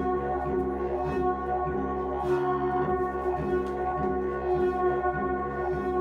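A Rutman steel cello being bowed: a bent steel sheet with steel rods, giving a dense, sustained metallic drone of many overlapping held tones that ring like a gong or singing bowl.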